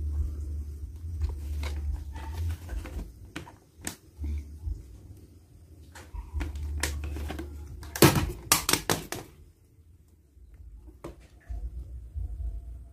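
Clicks and knocks of a plastic jar being handled, with a short loud burst of clatter about eight seconds in, over a low rumble that comes and goes.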